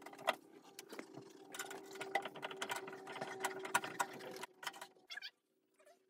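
Scattered light clicks and taps as the plastic front cover of an EcoSmart 27 tankless electric water heater is worked loose and lifted off the unit.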